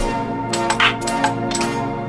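Background music: held chords with light ticking percussion and no bass drum.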